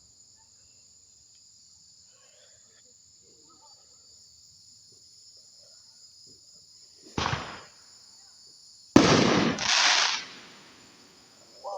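Fireworks going off in the distance: one bang about seven seconds in, then two louder bangs in quick succession two seconds later that fade away. A steady high chirring of insects runs underneath.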